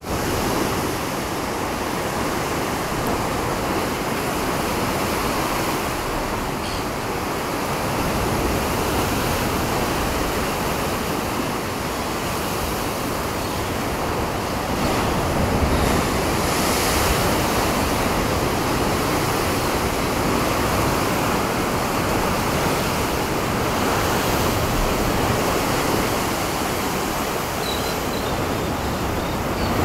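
Rough sea surf washing in and breaking against rocks below a cliff, a steady, continuous wash of waves with a low rumble.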